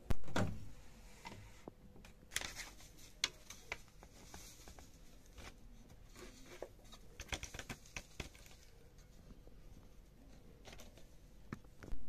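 Handling sounds at a front-loading washing machine. A thud comes right at the start, then rustling and crinkling with light clicks as lace curtains are handled in the drum and washing-machine soda is poured from a plastic bag into the detergent drawer. A sharp click near the end comes as the program dial is turned.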